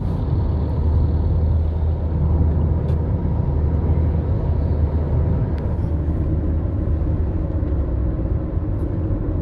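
Car travelling along a road: a steady low rumble of engine and road noise, with a few light clicks.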